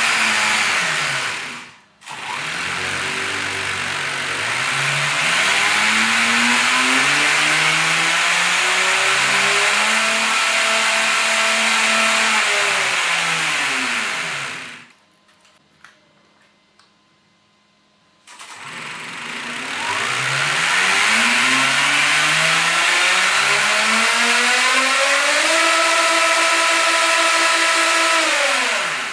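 The electric drivetrain of a 3D-printed 1:8-scale RC Supra, motor and gears whining as the free-spinning wheels are run up to top speed on a stand. The pitch climbs and then holds steady. It winds down and stops about halfway through, then winds up again to a slightly higher steady pitch and cuts off near the end.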